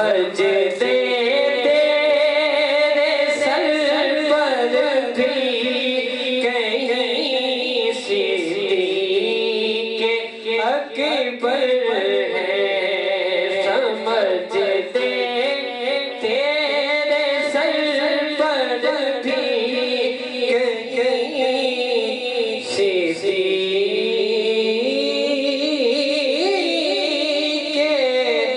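A man singing devotional Islamic verse solo into a microphone, in long held, ornamented notes that slide up and down.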